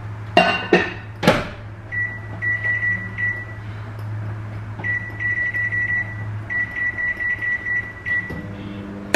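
Microwave oven being set: a few sharp clacks of its door and controls, then runs of short high electronic beeps at one pitch, over a low electrical hum.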